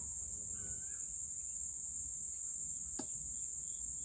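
A steady, high-pitched chorus of summer insects, unbroken throughout, over a faint low rumble, with one faint click about three seconds in.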